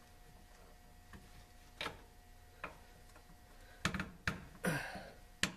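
Light metal clicks and clinks of steel mounting bolts being handled and fed through an air-spring bracket at a leaf-spring axle, a few scattered at first, then closer together and louder in the last second and a half.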